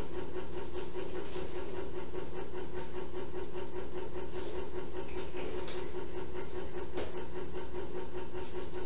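A steady low machine hum with a faint hiss, broken by a few brief soft rustles and a faint click about seven seconds in.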